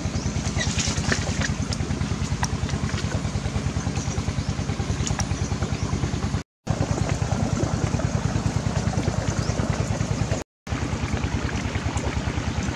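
A small engine running steadily, a fast even low throb. The sound cuts out briefly twice, a little past halfway and again about two seconds before the end.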